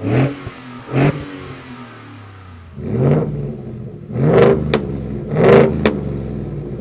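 Ford F-150's 5.0L Coyote V8 being revved at a standstill: two short blips through the stock exhaust near the start and about a second in, then, from about three seconds in, three longer, louder revs through a Borla ATAK dual rear-exit cat-back exhaust.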